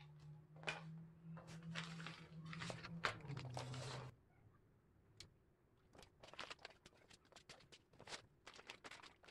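Faint handling of household clutter: plastic rustling over a low steady hum for about the first four seconds, then a string of light clicks and taps as cables and small items are moved.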